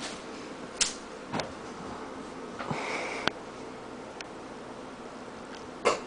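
A few short, sharp knocks and a brief rustle over quiet room tone.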